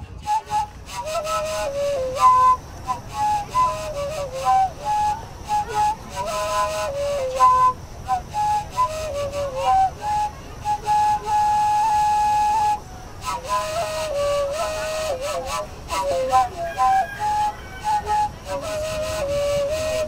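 Wooden end-blown flute playing a lively carnival melody of quick, shifting notes, with one long held note about ten seconds in, then a brief pause before the tune goes on.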